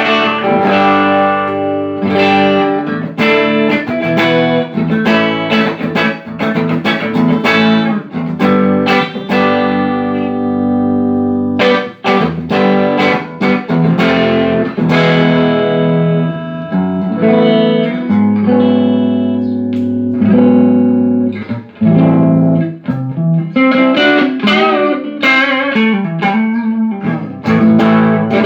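Electric guitar played through a Laney Cub12 valve combo amp, with picked single notes and chords ringing out continuously. The amp is working again after repair of a blown output transformer, a shorted EL84 output valve and a faulty bias supply.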